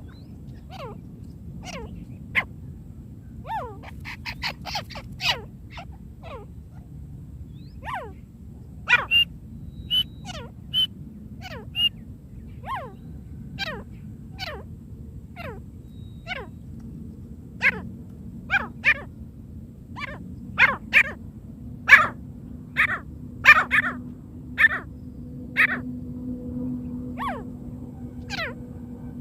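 Francolin (teetar) calls as played to lure wild birds in: short, sharp notes, each falling steeply in pitch, coming singly and in quick runs, loudest in a run of calls in the last third. A steady low hum lies under them.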